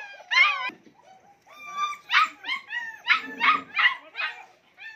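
A litter of German Shepherd puppies whining and yelping at feeding time, begging for the food being carried to them: a quick pair of high cries near the start, then a run of short, high-pitched cries in quick succession through the middle.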